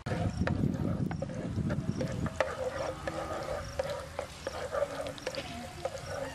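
Chopped garlic frying in a pan while a spatula stirs it, with repeated clicks and scrapes of the spatula against the pan.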